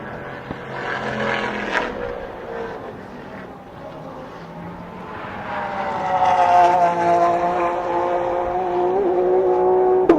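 Race car engines running at speed on the circuit as cars go by. One car sweeps past about two seconds in, and another grows louder from about halfway through, its engine note dipping then holding steady. A sharp pop comes near the end.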